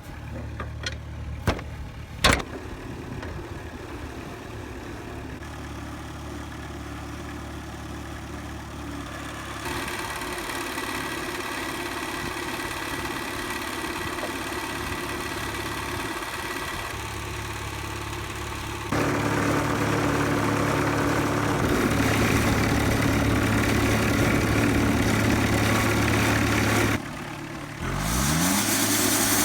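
An engine running steadily, with a few sharp clicks at the start. It grows louder in steps about a third and two-thirds of the way through, drops briefly near the end, then revs back up with a quickly rising pitch.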